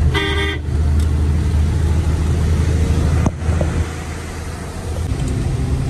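Truck engine running steadily, heard from inside the cab, with road and rain noise from the wet highway. A short pitched tone of about half a second comes right at the start, and a single sharp knock about three seconds in.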